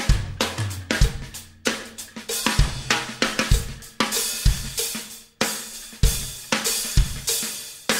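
Background music with a drum-kit beat: a kick drum about once a second, snare and cymbals.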